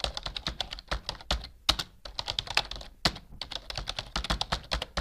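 Keyboard typing sound effect: a quick, irregular run of key clicks, several a second, keeping time with on-screen text being typed out letter by letter.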